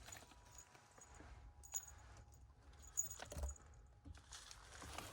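Faint handling noise with a few short metallic clinks, about 1.7 and 3 seconds in.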